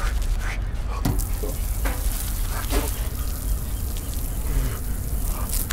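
Push-button outdoor shower running, water spraying and splashing onto a person's head and the wet concrete, a steady hiss.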